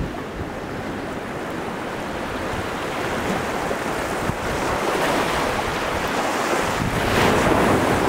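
Ocean surf washing against rocky sea cliffs, swelling to its loudest near the end, with hard wind rumbling on the microphone.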